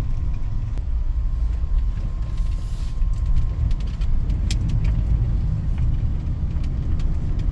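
Steady low engine and road rumble of a vehicle driving slowly, with a few light clicks and rattles.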